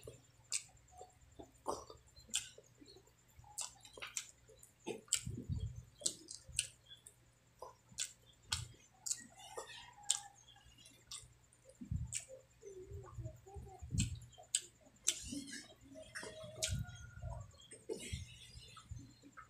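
Close-miked mouth sounds of eating soft, sticky braised pork leg and rice: chewing and lip smacking, with frequent sharp wet clicks several times a second.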